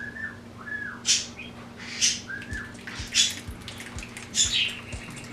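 Sauce being worked through a kitchen strainer: a short scratchy stroke about once a second as the strainer is moved. A few brief squeaky chirps sound in the first half.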